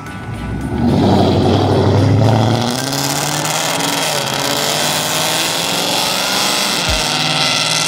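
Car engine getting loud about a second in, running hard, then easing to a steady running note whose pitch wavers.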